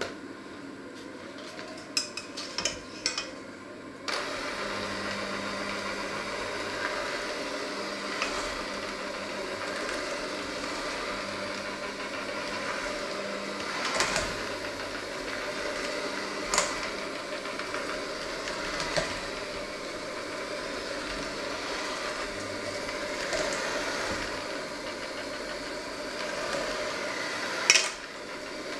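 Electric hand mixer with dough hooks running steadily as it kneads dough in a stainless steel bowl, with occasional clacks of the hooks against the bowl. The motor starts about four seconds in, after a few clicks, and stops just after a sharp clack near the end.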